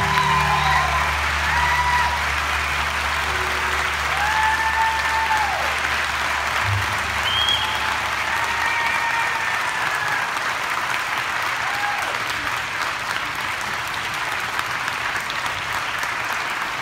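A large audience applauding steadily, with scattered whoops and cheers rising above the clapping.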